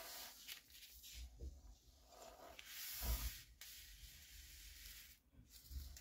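Quiet rustling and rubbing of the packaging of washi tape rolls being handled, in a few uneven bursts, the loudest about three seconds in.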